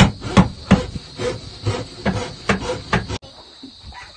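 Hammer blows on wood in a steady rhythm of about two to three strikes a second, stopping abruptly a little over three seconds in.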